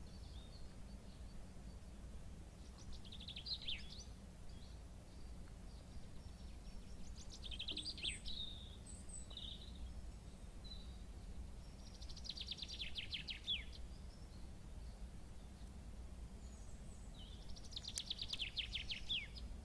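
A songbird singing four short phrases of rapid high notes a few seconds apart, each ending in a downward sweep, over steady low background noise.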